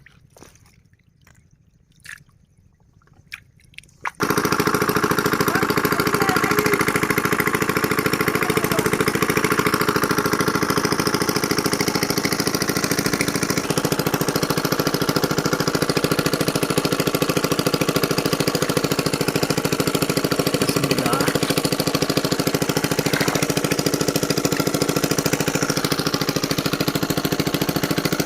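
Faint drips and small water splashes, then about four seconds in a small engine starts suddenly and runs loud and steady at a fast, even beat.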